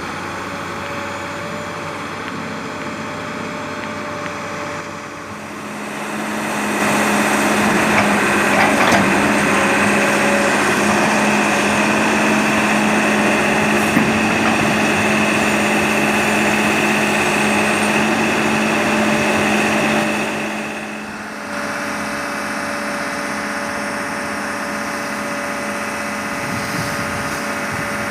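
Sumitomo S280 excavator's diesel engine running. About six seconds in it rises to a louder working level with a steady high whine, holds there for about fourteen seconds, then drops back to a lower running level.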